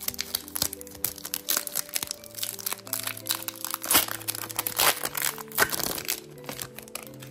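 Foil wrapper of a Pokémon trading card booster pack crinkling and crackling as it is torn open and the cards slid out, loudest about four seconds in. Soft background music with held notes plays underneath.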